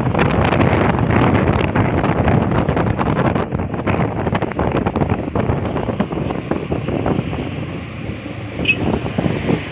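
Wind buffeting a phone's microphone on a moving motorcycle, a loud, rough rush that eases a little partway through. A brief high chirp comes near the end.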